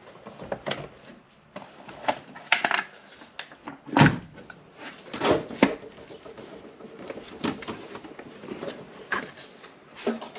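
Hard plastic knocks and scrapes of a car battery case being shifted and seated onto its tray, with the heaviest thuds about four seconds and five seconds in.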